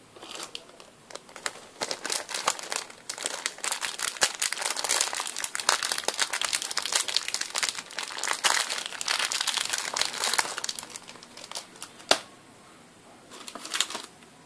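Small clear plastic bag crinkling and crackling as it is handled and torn open to unwrap a replacement amplifier chip, for about ten seconds. A single sharp click follows about twelve seconds in, then a brief last burst of crinkling.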